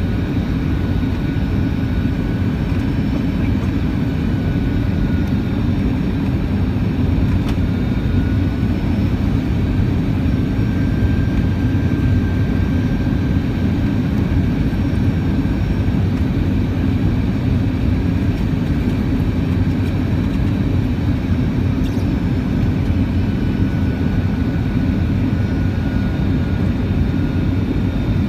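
Steady cabin noise inside an Airbus A319 airliner on descent: a low, even rush of engines and airflow with a faint high whine over it.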